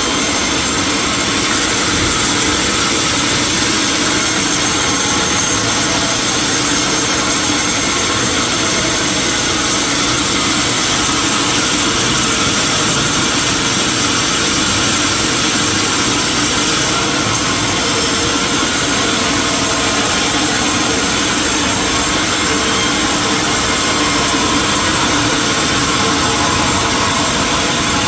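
Sawmill machinery running steadily, an even mechanical drone with a strong hiss and no pauses.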